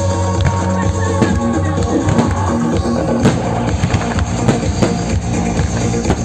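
Loud music with a drum beat playing over a fireworks display, with irregular sharp bangs and cracks from firework bursts, the strongest about three seconds in.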